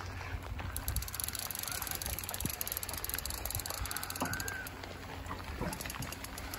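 Rain falling on the water and on rain gear, a steady hiss over a low rumble, with a rapid fine ticking for about two seconds near the start.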